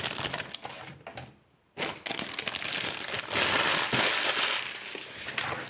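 Thin polyethylene plastic bag crinkling and crackling as it is handled and pulled at, briefly pausing about a second in before resuming steadily.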